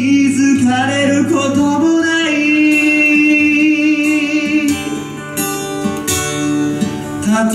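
Live acoustic guitar strummed while a man sings into a microphone, holding one long note near the middle.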